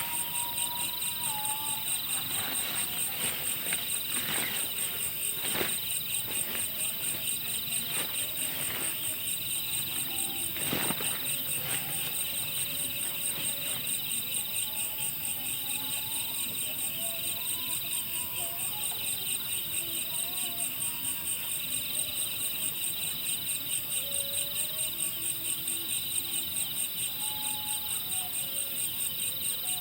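Night insect chorus, crickets chirping steadily in a dense high trill, with a slower call swelling and fading about once a second. A few faint clicks come through in the first ten seconds or so.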